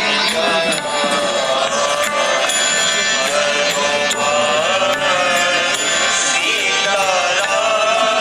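Devotional chanting set to music: a single voice sings a melody that bends in pitch over a steady accompaniment.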